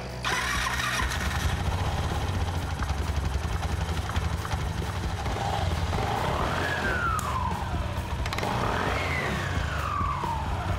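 Suzuki Address V125G scooter engine running with a steady low rumble; twice its whine rises in pitch and then slowly falls away, as the throttle is opened and closed.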